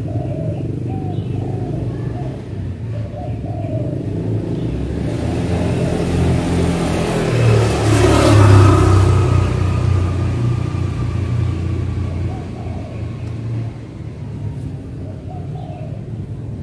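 A car passing on the road: the engine and tyre rumble grows to its loudest about halfway through, then fades away.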